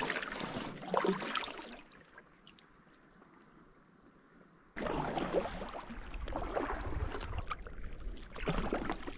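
Canoe paddle strokes splashing and water lapping against an inflatable canoe. The sound drops to a faint hiss for a few seconds in the middle, then returns suddenly and louder, with a low rumble under it, about five seconds in.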